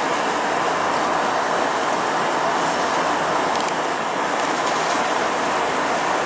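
Steady cabin noise inside an Airbus A320 in flight: a constant rush of airflow over the fuselage mixed with the drone of its IAE V2500 turbofan engines, heard from a window seat.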